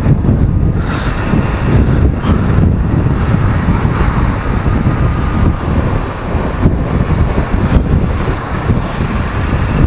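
Motorcycle riding at road speed: wind rushing over the rider's camera microphone, with engine and road noise underneath, steady throughout.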